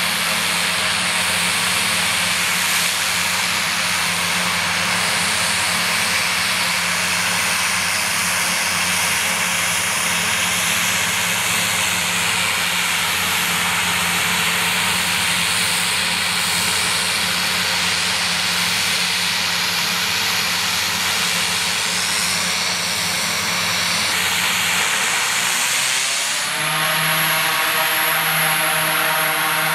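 Short SC-7 Skyvan's twin Garrett TPE331 turboprop engines running on the ground, with a steady turbine whine and hiss over a low propeller drone. Near the end the engine pitch rises and then holds steady at a higher note.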